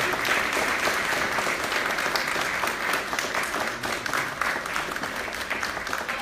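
Audience applauding: many hands clapping steadily, easing slightly near the end.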